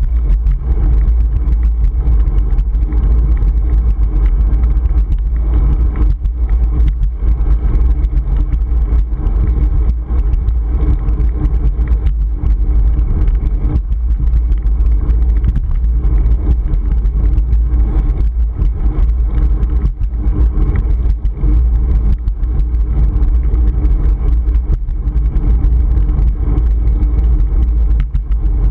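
Wind buffeting a GoPro Hero 3's microphone on a moving bicycle: a loud, steady, low rumble with road noise and frequent small knocks from bumps.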